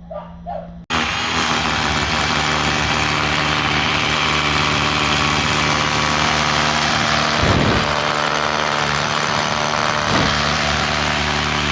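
Electric power-tool motor running steadily at constant speed, starting abruptly about a second in.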